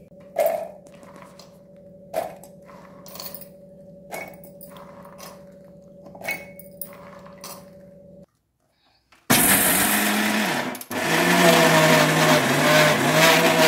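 Soaked, peeled almonds dropped by hand into a steel mixer-grinder jar, clinking a few times over a faint steady hum. About nine seconds in, after a brief silence, an electric mixer grinder starts running loudly, grinding the almonds into a coarse paste.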